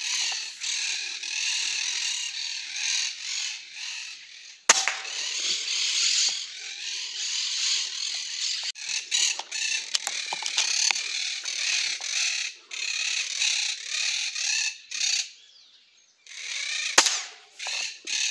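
Two sharp air rifle shots about twelve seconds apart, the first the louder. A dense chorus of birds chirping and calling runs under them.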